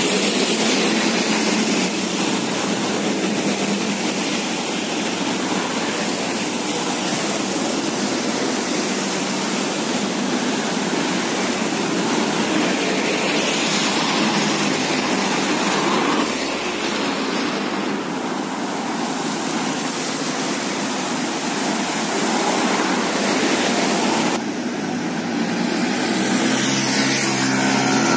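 Road traffic passing on wet asphalt: a steady hiss of tyres on the wet road mixed with the engines of passing trucks, cars and motorcycles. The noise changes abruptly once, near the end.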